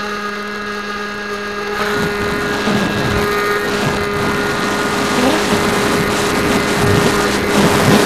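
Bixler 2 RC plane's electric pusher motor and propeller running with a steady whine at high throttle, as heard from the onboard camera. From about two seconds in, wind rushes over the microphone and grows louder as the plane flies and climbs, with the motor tone continuing underneath.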